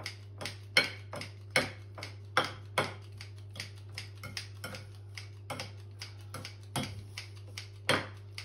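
Kitchen scissors snipping prawns into pieces in a bowl: a quick, uneven run of sharp snips, about two or three a second.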